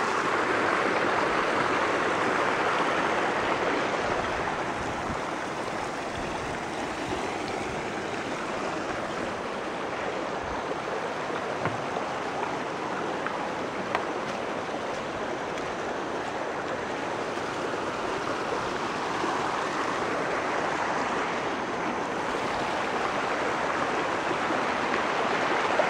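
Small stream of running water flowing steadily in a narrow channel, an even rushing sound.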